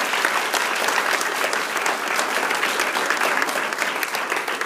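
Applause from a group of a few dozen people: many hands clapping steadily together.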